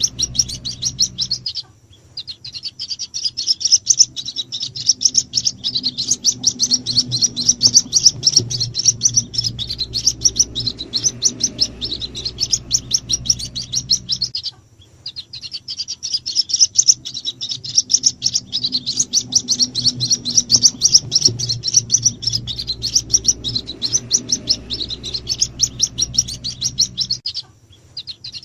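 White-breasted waterhen (ruak-ruak) chicks peeping in rapid, high-pitched chirps, played as a lure call to attract the parent birds. The chirping comes in near-identical stretches of about 13 seconds with short breaks between, a looped recording.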